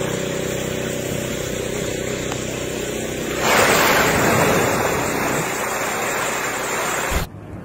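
A humpback whale lunge-feeding up through the surface. About three and a half seconds in, a sudden loud rush of splashing water as it breaks through with its mouth open, easing into churning water. A steady engine hum runs underneath.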